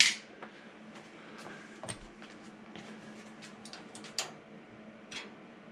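A few sparse, light clicks and taps of a hand rivet squeezer and aluminum parts being handled on the stabilizer, over a faint steady hum.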